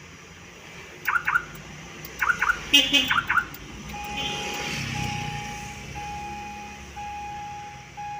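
Aftermarket car alarm siren on a 2000 Ford Lynx chirping in three short bursts of quick chirps, with sharp clicks among them. From about four seconds in, a steady single-pitched beep repeats about once a second.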